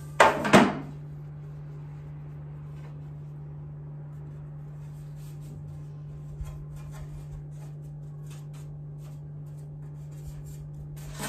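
A metal baking tray knocks twice against a wooden board in quick succession, then faint rubbing and light taps follow as hands settle a rolled sheet of baklava dough in the tray, over a steady low hum.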